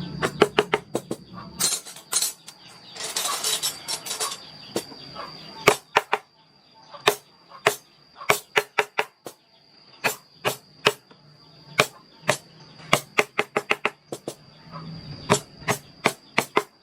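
Carving chisel struck with a mallet in quick runs of sharp taps, with a short scraping noise about three seconds in. A thin steady high tone runs underneath.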